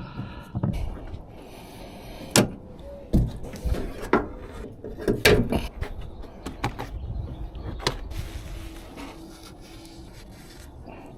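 A series of sharp knocks and clunks a second or more apart, over a low rumble, as things are handled and set down.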